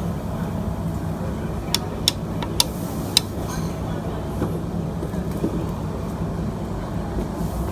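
Steady roar of a commercial gas wok burner under the cooking, with four sharp metallic clinks of a ladle striking the wok between about one and a half and three seconds in.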